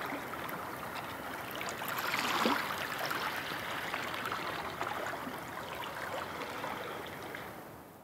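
Choppy sea water lapping and splashing: a steady wash with many small ticks, loudest about two seconds in and fading out near the end.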